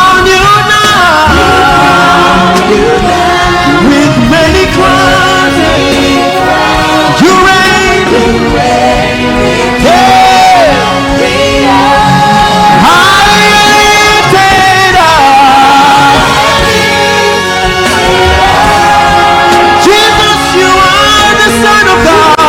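Gospel worship music: congregational singing over a live band, with long held and sliding sung notes.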